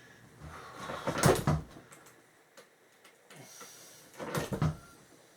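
A few irregular knocks and clunks of office-chair parts being worked by hand, as a stubbornly tight part is forced.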